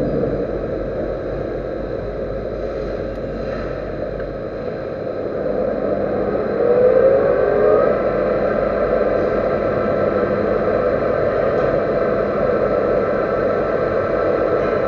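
Metal lathe running steadily while turning a servo motor shaft. About seven seconds in it gets louder with a brief wavering whine from the cut.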